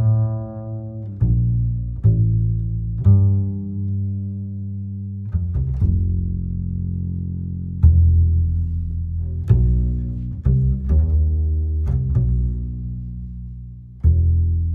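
Background music: low plucked string notes, each struck sharply and ringing away, about one every second.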